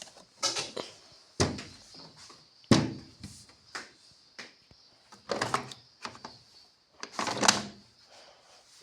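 Samsung washing machine thudding and banging during a spin with an unbalanced load: the drum knocks hard against the cabinet, with loud impacts at irregular intervals of about one to two seconds.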